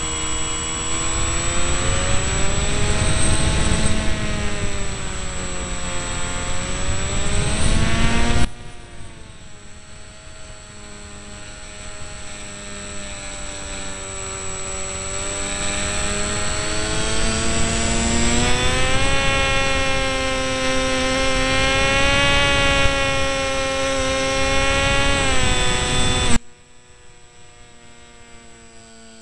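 Electric motor and propeller of an RC delta-wing model whining in flight, its pitch slowly rising and falling with the throttle, heard from the camera on board. Heavy rushing wind noise on the microphone cuts away abruptly about eight seconds in, and the whole sound drops sharply again near the end.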